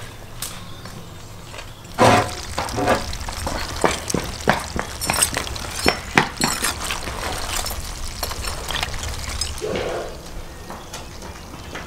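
A slotted metal skimmer stirring crayfish in a large cauldron of boiling water: a quick run of clicks, clinks and knocks of shells and metal against the pot over the bubbling of the water, starting about two seconds in and easing off near the end.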